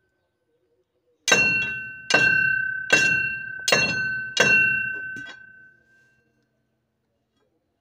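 Five hammer blows on a long steel bar used as a drift against a track roller of a Kubota combine harvester, driving out the roller's bearing. The strikes come about a second in, roughly 0.8 s apart, each with a clear metallic ring that dies away.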